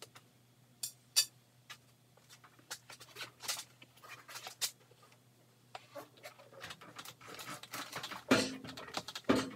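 Grizzly G0463 milling machine's heavy base being levered with a steel pry bar and shoved across an OSB-topped wooden stand: irregular scrapes, clicks and knocks, with two heavier thumps near the end.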